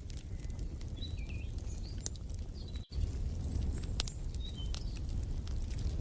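Fireplace crackling, with a steady low rumble and many sharp pops, while a few birds chirp over it. The sound cuts out for an instant about halfway through.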